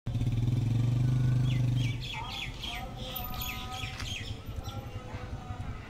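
A loud, steady low hum for about the first two seconds, then birds chirping in quick, repeated downward notes over outdoor background noise.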